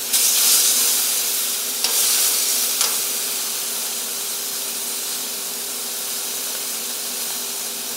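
Picanha steaks sizzling in melted butter on a very hot Pit Boss griddle plate: a steady hiss that is loudest at first and eases slowly. Two faint clicks come about two and three seconds in.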